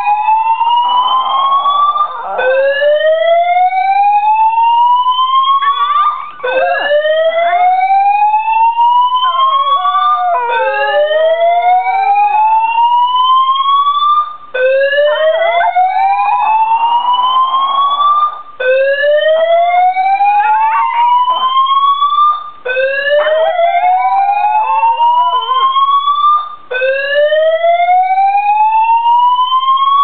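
A fire alarm siren sounds in repeated rising sweeps. Each sweep climbs for about four seconds, then drops back and starts again. A chihuahua howls along with it in several wavering stretches.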